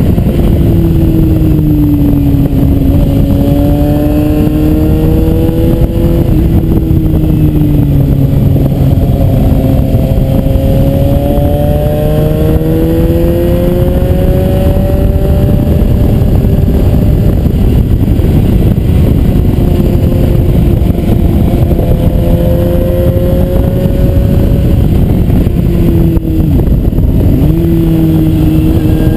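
Suzuki GSR 750 inline-four motorcycle engine pulling along at moderate revs, its note rising and falling with the throttle through the bends. There is a sharp dip and recovery in revs near the end. Constant wind and road rush on the bike-mounted microphone runs underneath.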